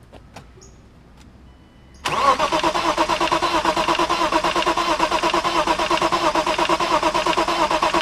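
A BMW 325is (E36) with its 2.5-litre straight-six is cranked on the starter: about two seconds in the starter cuts in suddenly and turns the engine over steadily with an even, rapid pulsing. This is a no-start car whose owners think the fuel pump is failing.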